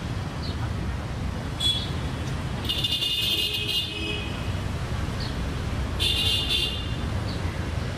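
Street traffic noise: a steady low rumble with high-pitched vehicle horns tooting several times, briefly about one and a half seconds in, for about a second near three seconds in, and again around six seconds in.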